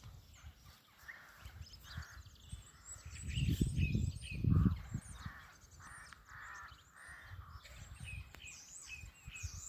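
Birds chirping and calling outdoors, with a low rumbling noise on the microphone that swells to its loudest about three to five seconds in.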